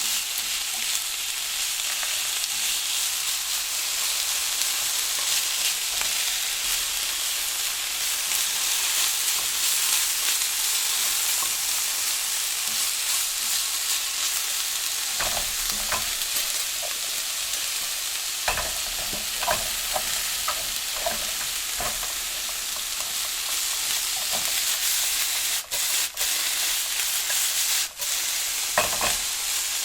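Vegetables stir-frying in a hot pan: a steady high sizzle, with a scattering of short knocks and scrapes from the stirring in the middle and near the end. The sizzle briefly cuts out twice near the end.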